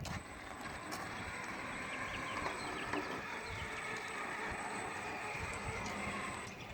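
Large RC truck towing a fifth-wheel trailer loaded with crawlers, driving over the ground with a steady running noise and small ticks.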